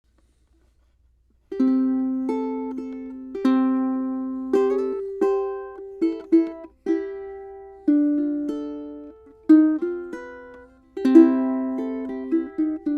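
Solo tenor ukulele with a redwood top and sycamore back and sides, fingerpicked in a slow, gentle melody. Single notes and chords are plucked and left to ring and fade. It begins about a second and a half in.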